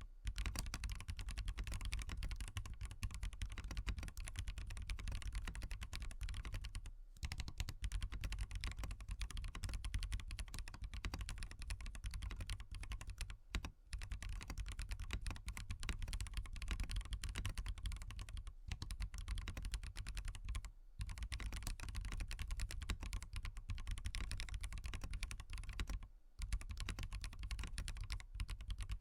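Fast, continuous typing on a SWAGKEYS Transition Lite mechanical keyboard with Bsun Bumblebee tactile switches and no foam in the case, the keys clacking in a dense stream broken by a few short pauses.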